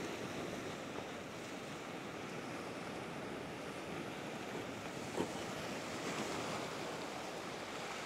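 Ocean surf washing and surging over a flat rock shelf, a steady rushing wash of breaking water.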